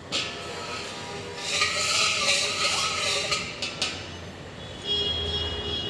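A long-handled steel spatula scraping around the inside of a large stainless-steel karahi holding water. The metal pan rings in steady tones, with a few sharp clicks a little past halfway.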